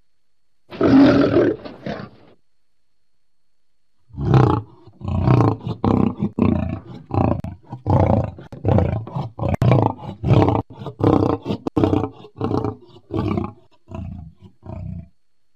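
Lion roaring: one long call, a pause, then a long run of short calls about two a second that grow shorter and fainter toward the end, the way a lion's roaring bout trails off.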